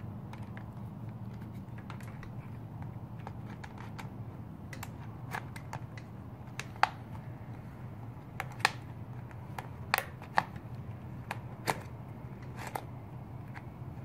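Irregular small sharp clicks and taps of plastic and metal parts being handled as an e-bike handlebar display mount is fitted with its clip-in spacers and small hex screws, over a steady low hum. The clicks come mostly in the second half.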